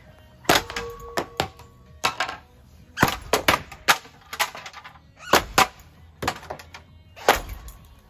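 A running ceiling fan being smacked again and again: about fifteen sharp, irregular hits, a few of them leaving a short ringing tone.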